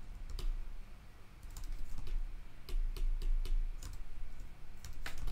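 Computer keyboard and mouse clicks, about a dozen at an irregular pace, over a steady low hum. They come from selecting mesh faces one after another in 3D software.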